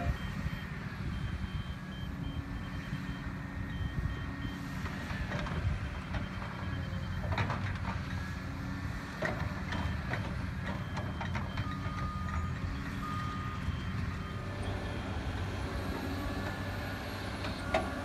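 Diesel engine of a tracked excavator running steadily, with a backup alarm beeping in quick pulses, mostly in the first few seconds and again briefly later. A few sharp metal clanks come in the middle.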